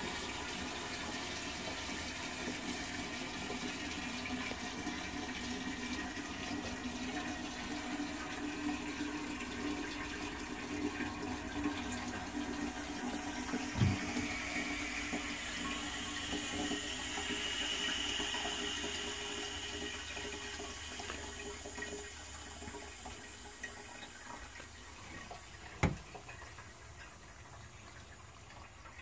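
Toilet cistern refilling after a flush, water hissing and trickling in through its float valve, then fading over the last several seconds as the fill eases off. Two sharp knocks, one about halfway through and one near the end.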